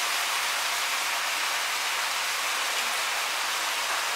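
Beef mince, onion and grated carrot frying in a pan, sizzling steadily with an even hiss.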